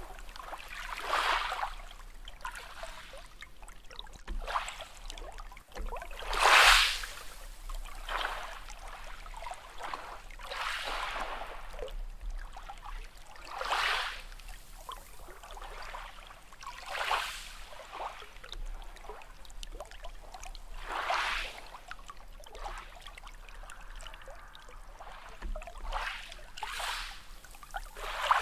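Small sea waves washing in and draining back, a fresh swell of water every few seconds, the loudest about seven seconds in.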